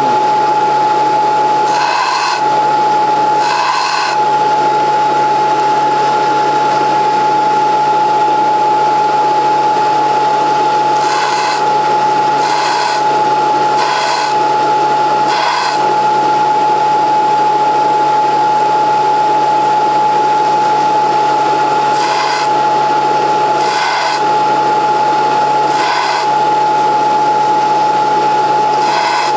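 Belt sander running with a steady high whine, and a steel drill bit ground against its abrasive belt in about ten short grinding bursts in three bunches. The bit is being sharpened: its broken end is rolled on the belt to grind the relief off the back of the new cutting edges.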